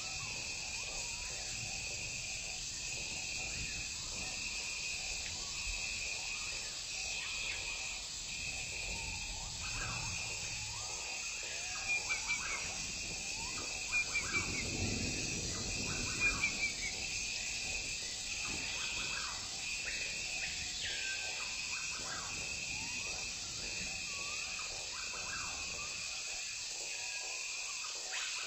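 Forest ambience: a steady, pulsing high insect drone repeating about once a second, with scattered short bird calls. Midway there is a brief cluster of sharp snaps and rustling from elephants breaking branches as they feed.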